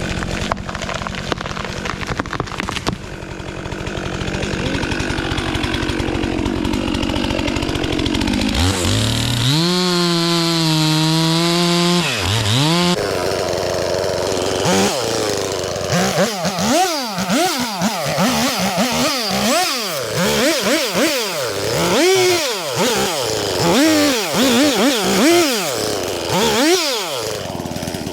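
Two-stroke chainsaw running. For the first several seconds it runs with a dense, rough sound, then holds at a steady high speed for about three seconds, and from about halfway on its engine is revved up and let back down repeatedly in quick throttle blips.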